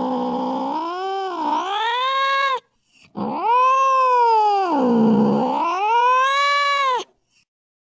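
Domestic cat giving two long, drawn-out angry yowls (caterwauling), each sliding down in pitch and back up again. The first breaks off about two and a half seconds in, and the second starts a moment later and stops about a second before the end.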